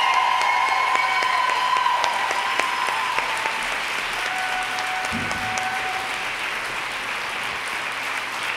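Audience applauding, with long held tones over the clapping in the first two seconds and another shorter one near the middle.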